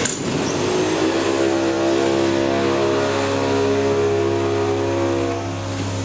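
Elevator motor whining in several tones, starting about a second in and fading near the end, over a steady low electrical hum.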